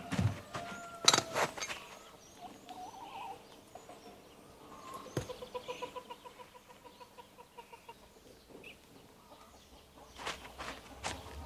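Sharp metallic clicks of a van's door handle and latch about a second in as the door is opened, and a single knock about five seconds in as he climbs aboard. Behind them, a bird calls in a quick, even series of notes.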